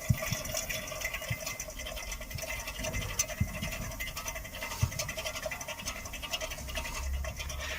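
Worn rear wheel hub bearing of a Hyundai Solaris, turning with the brakes off and giving a steady, dry scraping rasp. It is the failing bearing behind the harsh squeak when pulling away.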